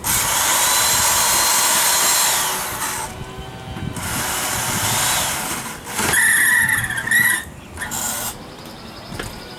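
Old 1980s electric drill with a 3/8 bit running in several bursts against the pontoon's metal floor, the bit failing to break through. The first run lasts about three seconds and winds down; a later run carries a high squeal of bit on metal.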